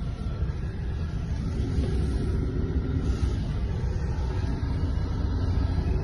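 Steady low rumble of a vehicle driving: engine and road noise.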